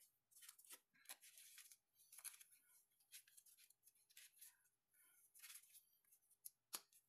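Faint rustling, scraping and small clicks of photo cards and paper being handled and sorted, in a series of short scratchy strokes.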